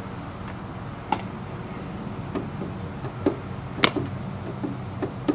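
Thrown baseballs smacking into a leather glove: several sharp pops, the loudest just before four seconds in, over a steady low hum.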